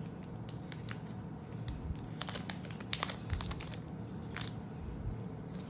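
Plastic protective film being peeled and torn off a new smartphone, with scattered crinkles and small clicks.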